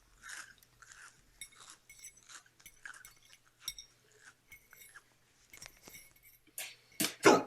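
Cartoon sound effect of a character crunching and chewing rocks: a string of irregular crunches, with two louder ones close together near the end.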